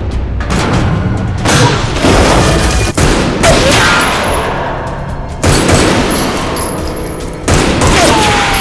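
Action-film gunfight sound: heavy gunshots booming with long echoes every second or two, bullets striking metal and whining off in ricochets, over a music score.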